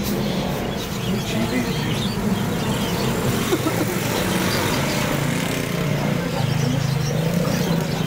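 Steady low hum of a running engine, dipping slightly in pitch about five seconds in, over a haze of background noise.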